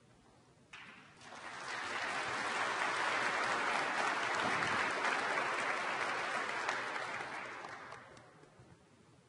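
Audience applauding, swelling up about a second in and dying away near the end.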